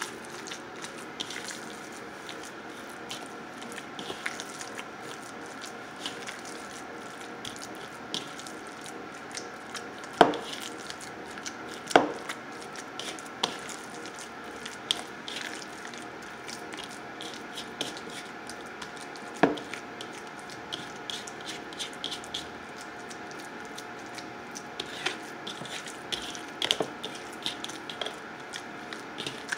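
Hands kneading raw ground chicken mixed with egg and seasonings in a mixing bowl: soft squelching with many small clicks, and a few sharper knocks about 10, 12 and 19 seconds in.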